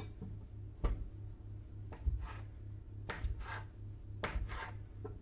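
A kitchen knife cutting through soft rolled dough and knocking down onto a cutting board, four or five short thuds about a second apart.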